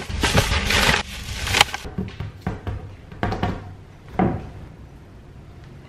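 Plastic grocery bags rustling as they are handled and loaded into a car trunk. About two seconds in, it gives way to a few soft knocks in a quiet room.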